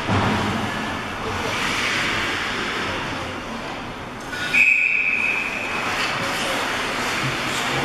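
Rink noise with voices from the stands, and about halfway through a referee's whistle giving one short, steady blast.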